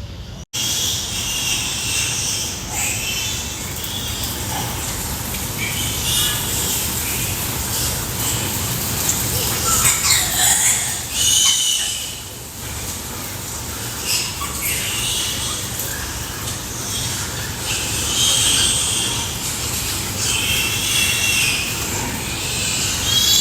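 Pigs squealing: a run of short, high-pitched squeals every second or two over a steady low hum.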